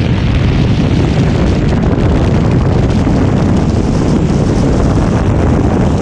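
Steady wind buffeting the camera microphone of a paraglider in a steep banked acro turn: a loud, dense rumble with no breaks.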